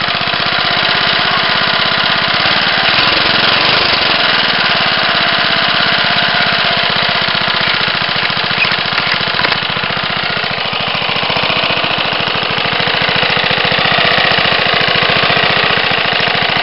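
1963 Briggs & Stratton 2.5 hp, 8 cubic inch single-cylinder four-stroke lawn mower engine with a log-style muffler, running steadily just after starting, with a fast, even firing beat.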